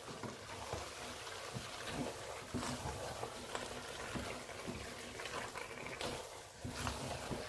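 Wooden spatula stirring a thick mix of meat and ground egusi in a stainless steel pot: faint wet squelching with soft, irregular knocks and scrapes against the pot.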